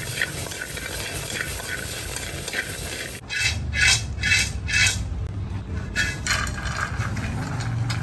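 Rambutan seeds stirred with chopsticks in a steel wok, rattling and ticking against the metal. About three seconds in come a run of four or five louder scrapes and a few more later, as the seeds are scraped and tipped out of the wok onto a plate.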